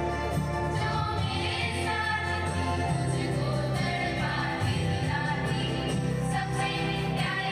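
School choir singing a song, with steady low notes held underneath the voices.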